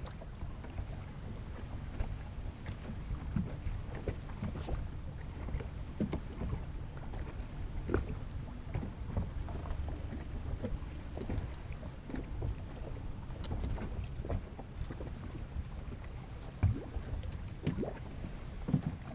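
Water lapping and slapping against the hull of a bass boat, with a steady low rumble of wind on the microphone and scattered small knocks, two of them louder about eight seconds in and near the end.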